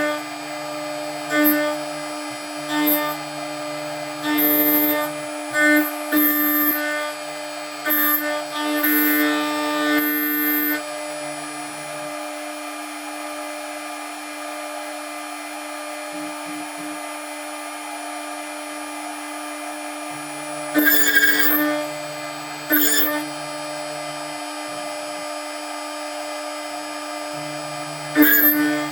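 DIY CNC milling machine cutting steel: the spindle runs with a steady whine, and loud bursts of cutting noise come and go over the first ten seconds and again twice near the end.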